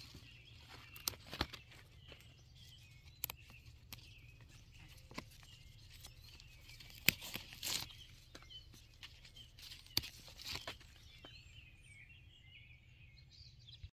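Handling noise: scattered sharp clicks and short rustles as a hand works around an eggplant stem and its wire cage close to the microphone, over a low steady rumble, with faint bird chirps behind.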